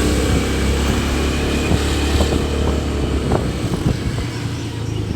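Loud, steady low rumble of vehicle noise with a hiss over it and a few faint knocks.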